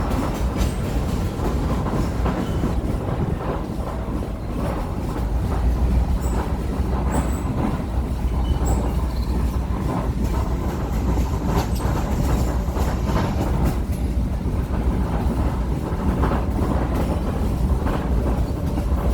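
Heritage excursion train rolling along the track: a steady low rumble with the clickety-clack of wheels over rail joints.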